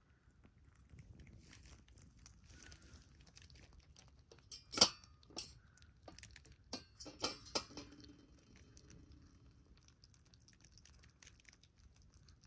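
Rabbits chewing banana: faint, soft chewing, with a few sharp clicks or taps about five seconds in and again around seven seconds, the loudest near five seconds.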